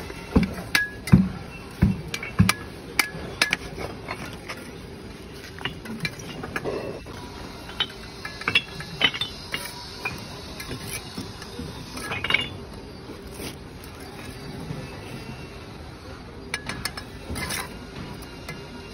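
Steel trowel clinking, tapping and scraping against hollow clay bricks and wet mortar as bricks are laid and tapped into place. The quick clicks and knocks come thick in the first few seconds, then scattered, with small clusters about twelve and seventeen seconds in.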